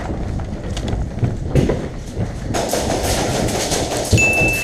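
Running footsteps on a hard floor with gear and a replica rifle rattling, an irregular clatter of knocks. Near the end a steady high-pitched beep comes in.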